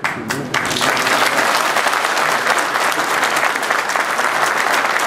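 Audience applauding: a few separate claps at first, swelling within about half a second into dense, steady applause.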